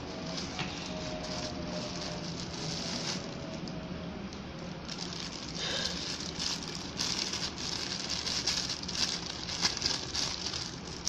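Clear plastic bag crinkling and rustling as a camera lens is handled and unwrapped from it. It gets louder and more crackly from about halfway in.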